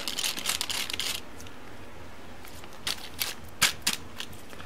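Keyboard-cleaning slime gel being pressed onto and pulled off a computer keyboard: a dense rustle for about the first second, then several separate sharp clicks of the keys as the hand presses on them.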